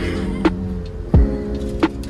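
Background music with a steady beat: low thumps and sharper hits alternating over held notes.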